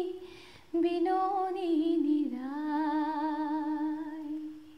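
A woman's solo voice singing a Bengali devotional song with no instruments. After a short break she resumes about three-quarters of a second in, and the closing phrase settles onto one long held note with vibrato that fades out near the end.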